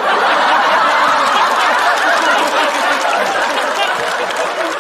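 Studio audience laughing and applauding together in response to a stand-up punchline, a loud, steady wash of clapping and laughter that eases slightly toward the end.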